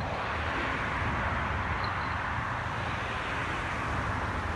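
Steady rushing ambient noise with a low rumble underneath, with no distinct events.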